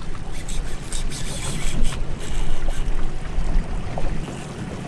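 Boat engine idling with a steady low hum, while wind gusts buffet the microphone, strongest in the first couple of seconds.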